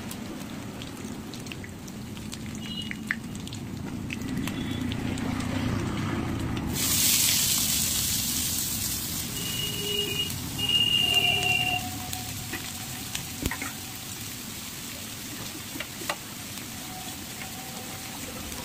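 Hot oil sizzling in an aluminium kadai while spices are stirred with a metal spatula. About seven seconds in, chopped onions and green chillies tipped into the oil set off a sudden loud sizzle that slowly settles. Around ten to twelve seconds, two short high whistling tones sound over the frying.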